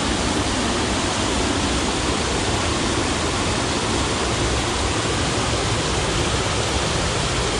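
Mountain stream rushing over rocks: a steady, even wash of water noise.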